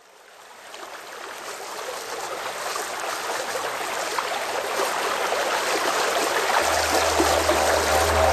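Running water, like a stream, fading in and growing louder. A low steady drone enters about two-thirds through as intro music starts.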